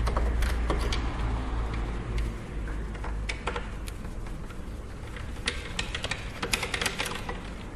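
Irregular small clicks and taps of a screwdriver and small metal screws against a PlayStation 3's casing as its screws are taken out, with a quick run of clicks near the end.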